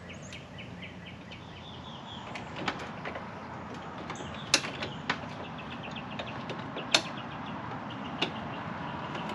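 Metal clinks and clicks of hand tools working at the bottom of a go-kart's steering shaft, where a washer and nut are being fitted below a new steering bushing. A handful of sharp clinks stand out, with rows of fast, light ticks between them.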